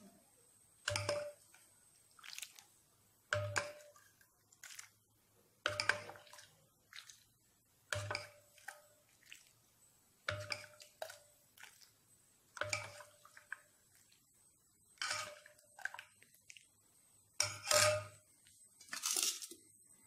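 Utensil clinks against a vessel about every two and a half seconds, each with a short ring, as warm milk is spooned over fried paniyaram, with soft splashes of milk between.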